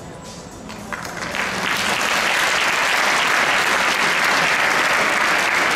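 Arena audience applauding: the clapping starts about a second in, builds quickly and then holds steady, greeting the horse and rider at the end of the dressage test.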